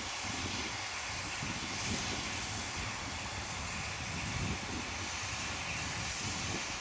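Steady hiss of a steam locomotive standing at rest, with wind gusting on the microphone.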